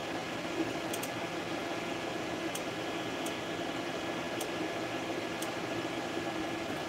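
Creality FDM 3D printer running a print: steady fan whir with the stepper motors whining as the print head moves, and a few faint ticks.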